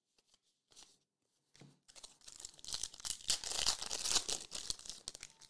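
Foil trading-card pack wrapper crinkling and tearing as it is pulled open by hand. A dense crackle starts about two seconds in and stops just before the end.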